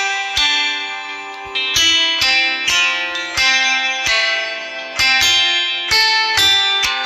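A Samsung Galaxy A21s ringtone playing: a melody of plucked, guitar-like notes, each struck sharply and ringing out, a little under two notes a second.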